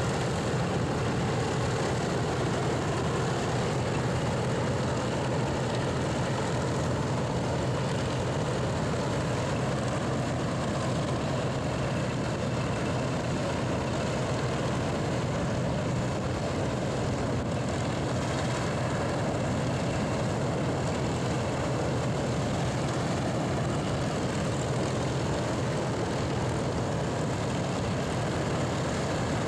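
Republic P-47 Thunderbolt's Pratt & Whitney R-2800 eighteen-cylinder radial engine idling during warm-up, a steady low drone with propeller noise that holds level throughout.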